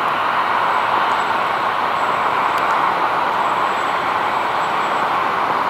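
Airbus A321neo's twin CFM LEAP-1A turbofans at takeoff power as the jet climbs away, a steady rushing jet noise.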